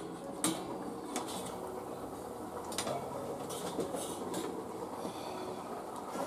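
Metal spatula and steel lid clinking against a metal frying pan, several sharp clinks spread through, over a steady sizzle of food frying.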